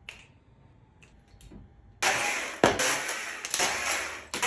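A few faint clicks, then about two seconds in a chainsaw suddenly starts cutting into a cedar log, running loud and steady under load with one sharp knock soon after it begins.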